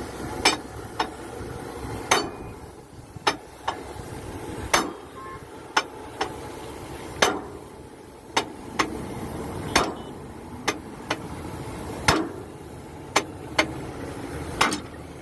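Sharp metallic clinks and knocks, about one a second and often in close pairs, from a steel bar being worked against a heavy wheel hub during a hub repair.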